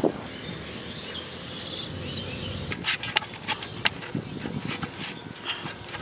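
Outdoor ambience: a steady hiss with a quick run of sharp clicks between about three and four seconds in.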